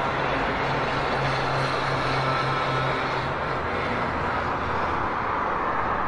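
City street traffic noise: a steady wash of vehicles on the road, with one engine's low hum that drops in pitch a little past halfway.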